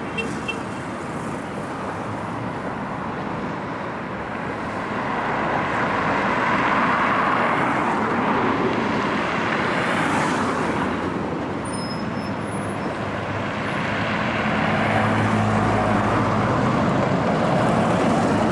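Street traffic: a steady wash of road noise that swells as vehicles drive past about a third of the way in and again near the end, the second pass carrying a low engine hum.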